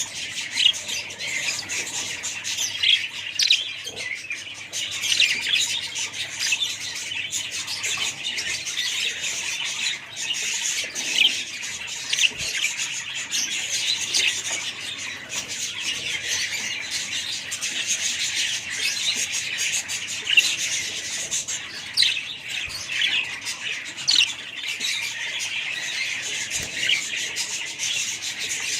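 A flock of budgerigars chattering and squawking, many short high-pitched calls overlapping without pause.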